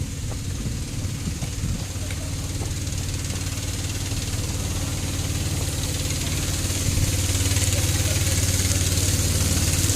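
Small petrol engine running steadily at a low, even pitch. It gets louder about seven seconds in, with a hiss rising over it.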